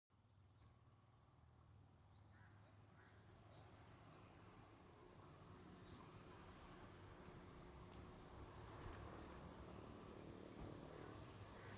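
Faint outdoor ambience fading in: small birds chirping in many short, rising calls over a low steady hum.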